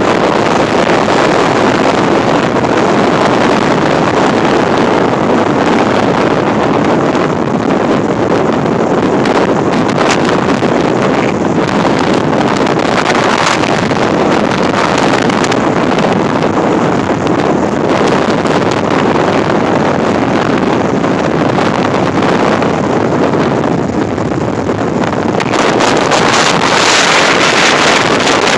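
Strong gusting wind buffeting the phone's microphone, a loud continuous rushing noise that grows louder near the end as a stronger gust hits.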